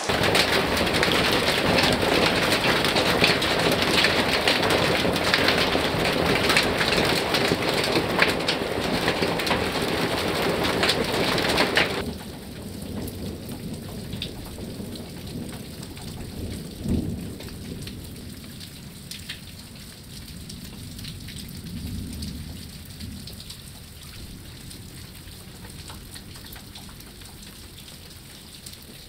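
Heavy rain shower falling hard with many small drop impacts, cutting off abruptly about twelve seconds in to a much quieter, steady patter of drops. A low rumble of distant thunder swells a little past the middle.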